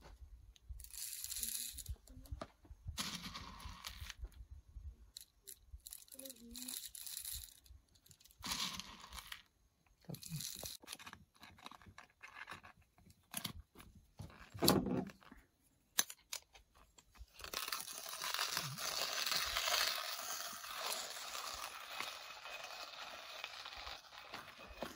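Manual coffee grinder being handled, with short scraping, rattling and knocking sounds, then hand-ground coffee beans crunching steadily through the burrs for the last several seconds.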